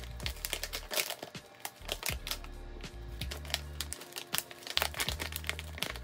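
Thick clear plastic plant wrapping crinkling and crackling as it is cut with scissors and pulled open by hand, with many sharp crackles, over background music with a low bass.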